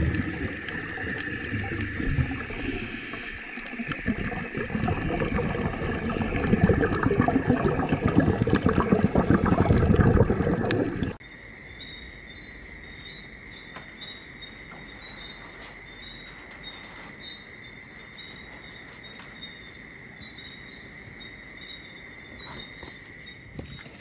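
Loud water noise from an aquarium tank, which cuts off suddenly about eleven seconds in. Steady, high, fast-pulsing insect trilling follows.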